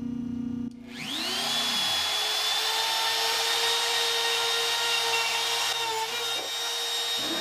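Bosch Colt trim router on a Shapeoko 2 CNC machine cutting a workpiece. A steady lower hum breaks off just under a second in, and a rising whine then settles into a steady high whine with a loud hiss as the bit mills.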